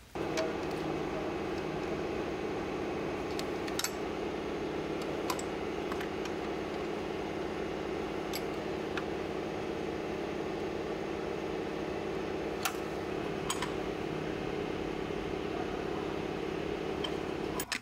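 BMW N20 2.0-litre turbocharged four-cylinder engine idling steadily after the fuel rail has been reinstalled, with a few faint clicks over the running sound.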